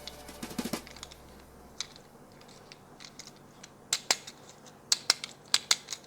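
Sharp irregular clicks and snips of toy packaging being handled and opened: a few near the start, then a quicker run of clicks from about four seconds in.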